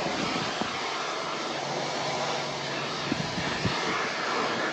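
Pressure washer spraying a high-pressure water jet against the metal walls of a calf pen, a steady hiss, with a few faint knocks about three seconds in.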